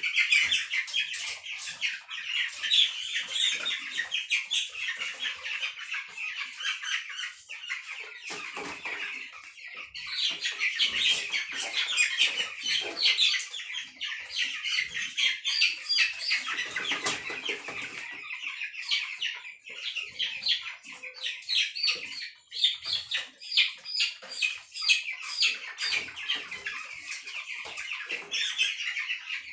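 A pen full of young broiler chickens peeping densely and continuously in high, rapid chirps, with some low rustling and thumps from the birds being handled, most around the middle.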